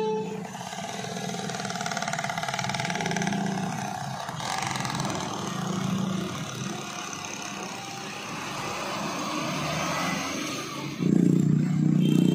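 UD Trucks Quester diesel lorry's engine running as it pulls slowly past, with motorcycle engines passing close. A louder engine swell comes near the end.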